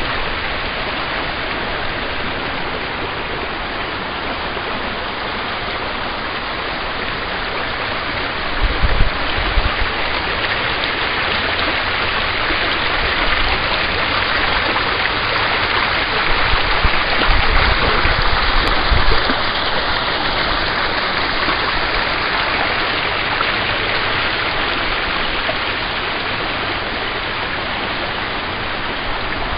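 Small rocky woodland brook rushing over stones in a steady wash of running water, louder through the middle. There are two short spells of low rumble, about nine seconds in and again around seventeen seconds.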